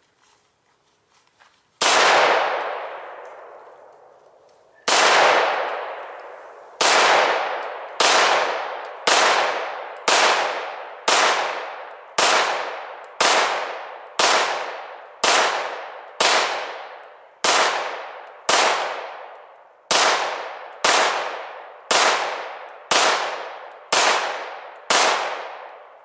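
Beretta 92FS 9mm pistol firing twenty shots, emptying a 20-round extended magazine: a single shot, a pause of about three seconds, then steady fire at about one shot a second. Each shot rings out with a long echo that fades before the next.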